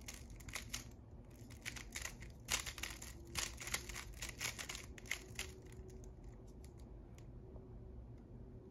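Plastic 3x3 speedcube being turned quickly by hand to scramble it: runs of quick clicking and clacking layer turns that thin out and stop about seven seconds in.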